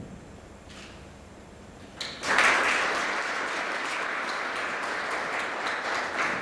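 Audience applauding: quiet room tone, then clapping breaks out about two seconds in and carries on steadily.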